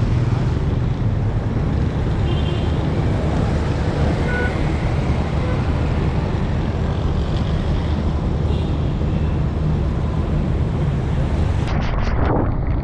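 Traffic noise heard from a moving motorcycle through a helmet-mounted microphone: a steady low rumble of engine, tyres on a wet road and wind on the microphone, with cars and motorcycles passing close by.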